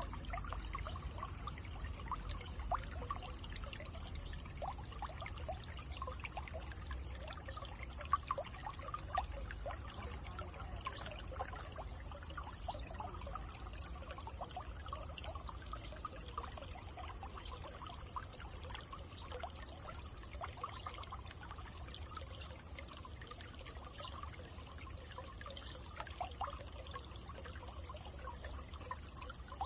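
Small stream trickling and burbling over stones, a dense run of little splashes, with a steady high-pitched continuous sound above it throughout.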